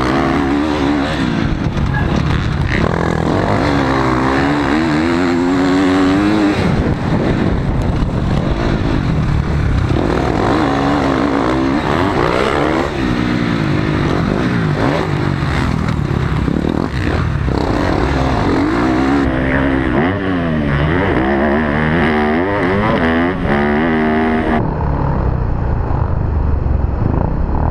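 Motocross dirt bike engine revving hard, its pitch climbing and dropping over and over as the rider accelerates and shuts off around the track. Wind rush on the helmet camera runs under it.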